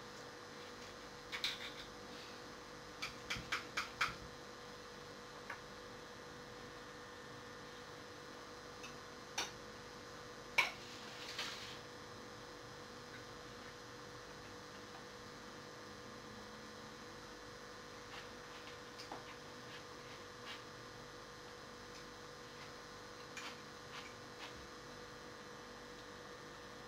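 Steady electrical hum, with scattered light clicks and taps over it: a quick run of four a few seconds in and one sharper click about ten seconds in.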